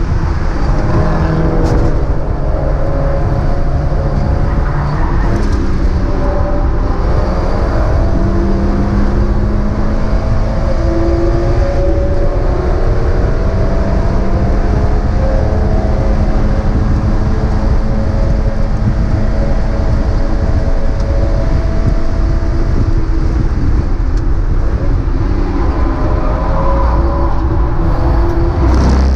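Mazda MX-5 race car's four-cylinder engine running hard, its pitch rising and falling with throttle and gear changes.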